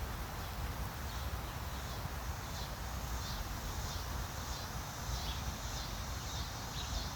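Outdoor ambience ahead of a storm: a steady low rumble of wind on the microphone, with faint, scattered high chirps of birds.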